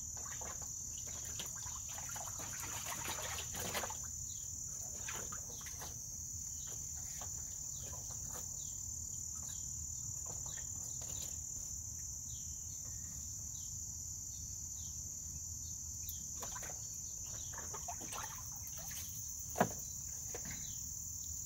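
A steady, high-pitched insect chorus, with light splashing and water sounds as an American mink swims and climbs in a shallow plastic pool, busiest two to four seconds in. A single sharp click comes near the end.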